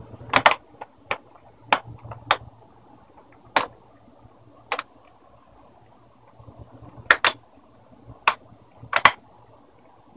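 Plastic screen bezel of a Lenovo G780 laptop being pressed back onto the lid, its clips snapping into place with about a dozen sharp, irregular clicks.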